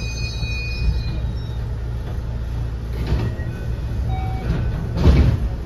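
Onboard running sound of a JR West 207 series EMU motor car with Mitsubishi power-transistor VVVF inverter: a low rumble, with the inverter's high steady whine dying away about a second in. A short rush of noise comes near the end, the loudest moment.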